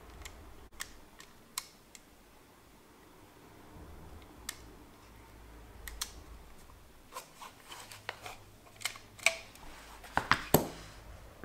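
Small mechanical clicks as the shutter speed dial of a Soligor TM 35mm SLR is pulled up and turned to set the film speed, with knocks from handling the metal camera body. The clicks come a few at a time at first, then thicker and louder over the last few seconds.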